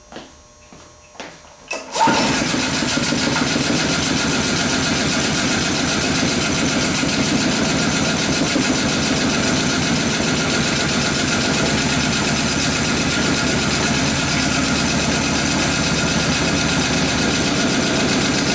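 Small Honda engine, running on rubbing-alcohol vapour and HHO gas fed by compressed air, starting suddenly about two seconds in and then running steadily. A few light knocks come before it starts.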